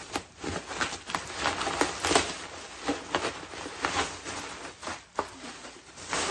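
Bubble wrap rustling and crinkling as hands pull it away from a small box, with many short sharp crackles scattered throughout.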